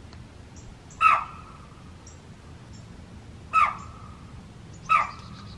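Axis deer blowing an alarm: three short, sharp calls, about a second in, again past three and a half seconds and near the end, each with a brief ringing tone after it. The hunter takes it for a doe that has probably caught his scent.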